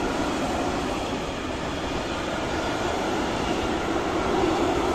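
Freight train of tank wagons rolling past, a steady noise of wheels running on the rails, growing slightly louder near the end.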